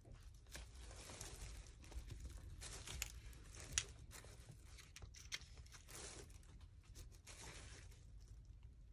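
Faint crinkling of plastic wrap, with light scattered clicks as a hand picks small rhinestones from a plastic organizer and sets them on the mold; two sharper ticks in the middle.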